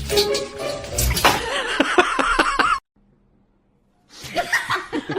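People laughing in quick repeated bursts. The laughter cuts off suddenly for over a second of near silence, then starts again.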